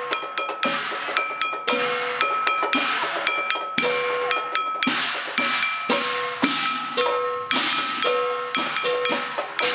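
Chinese gong-and-drum percussion music: struck metal percussion, bell-like gongs and cymbals, beaten in a quick, steady rhythm, each strike ringing briefly at a fixed pitch.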